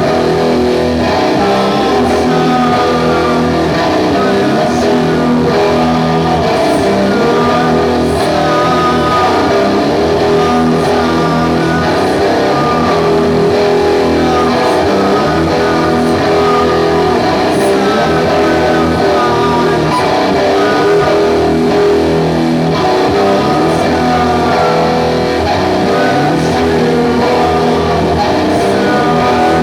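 Live doom metal band playing loud, distorted electric guitars in slow, long-held chords, with cymbal hits every couple of seconds.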